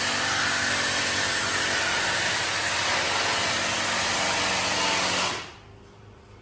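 A loud, steady machine whir with a strong rush of air noise and a low motor hum underneath, which stops about five seconds in.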